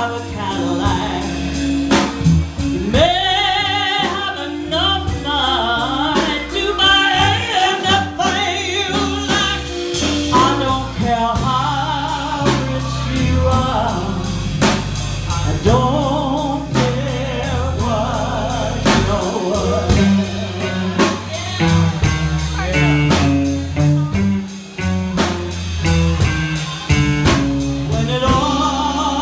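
Live blues band playing: a lead vocal with wide, wavering vibrato over a steady drum beat and a moving bass line.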